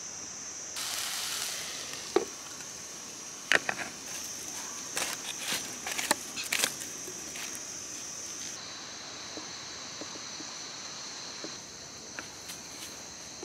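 Wood fire crackling and snapping in a three-stone hearth under a cooking pot, with a cluster of sharp snaps a few seconds in, over a steady high insect drone. Near the end come a few light knocks of a wooden spoon stirring the pot.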